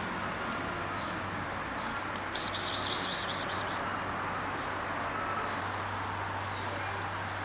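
A bird gives a rapid, high-pitched chattering call, about seven quick notes a second for just over a second, about two and a half seconds in. It sounds over a steady outdoor hiss with faint, thin high whistles.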